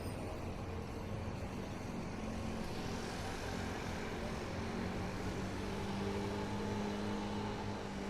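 Street traffic: a motor vehicle's engine drones steadily over a general city hum, the drone growing stronger and rising slightly in pitch in the second half.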